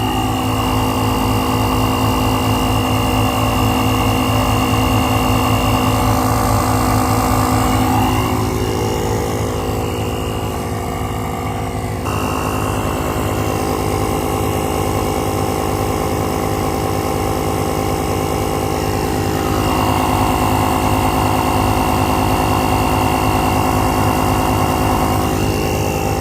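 Portable tire-inflator air compressor built into a jump starter pack, running steadily with a fast, even pulsing while it pumps up a truck tire. It keeps running rather than shutting itself off at the set pressure.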